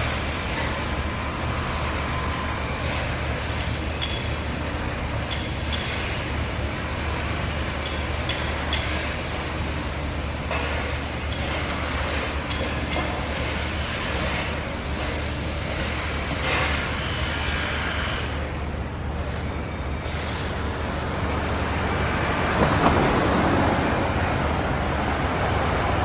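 Steady drone of a running engine mixed with street traffic noise. A louder swell comes through near the end.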